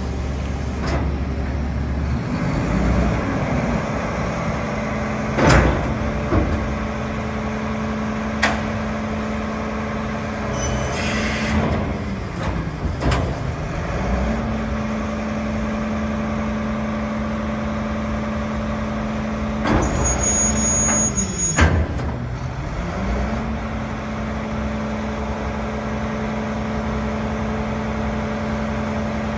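Diesel engine of a Mack MRU613 garbage truck running under load from the hydraulics of its EZ Pack rear-loader packer as the packer cycles. The engine note dips and recovers three times as the hydraulic cylinders load it, with clunks from the moving panels and a brief hiss of air about two-thirds of the way through.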